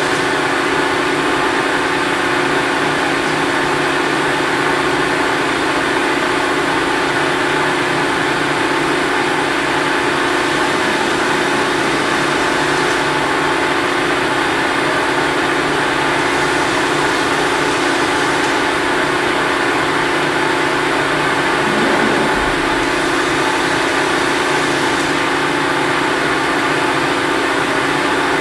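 Cincinnati Autoshape 175-ton hydraulic press brake running, its hydraulic pump and motor giving a loud, steady hum.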